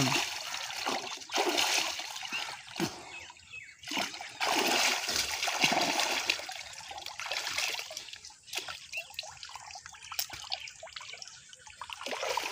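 Water splashing and sloshing in a shallow, muddy irrigation canal as a swimmer plunges in and thrashes about, coming in several bursts with quieter gaps between.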